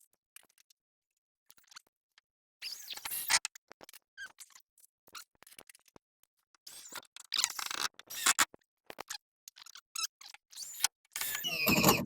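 Power drill driving screws into a wooden stud in three short bursts, with small clicks and knocks of handling between them.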